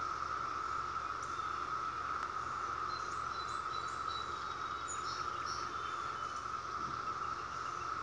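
A chorus of periodical cicadas: a steady, unbroken drone at one pitch, with a few faint high chirps near the middle.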